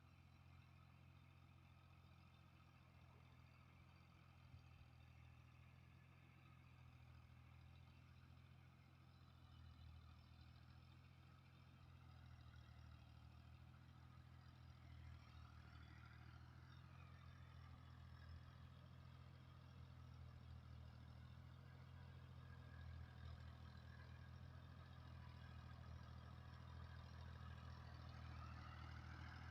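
Heavy diesel engine running steadily and faintly, gradually growing louder, with a higher whine that rises and falls briefly about halfway through and again near the end.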